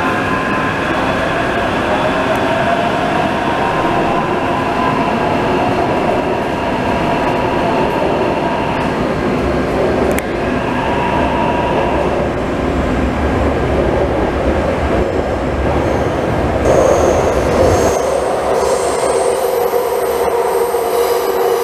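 Taipei Metro train running, heard from inside the passenger car: steady wheel-on-rail rumble and running noise, with an electric motor whine rising in pitch over the first few seconds as the train pulls away. Near the end, higher whistling tones come in over the rumble.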